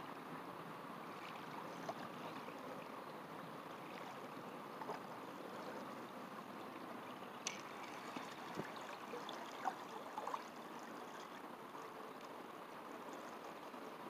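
Faint steady hiss of lake water lapping at the bank, with a few soft clicks around the middle.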